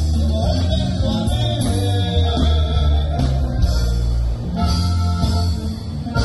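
Norteño band playing live, with guitars and a singing voice; the music changes to steadier held notes a little past halfway.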